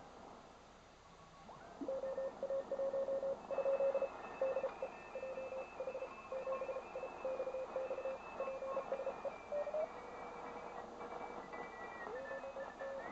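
Morse code (CW) signals from amateur stations on the 7 MHz (40-metre) band, heard through a Tecsun PL-660 shortwave receiver's speaker: one keyed beep tone sends about two seconds in, with fainter signals at other pitches over band hiss. Near the end a tone slides up in pitch.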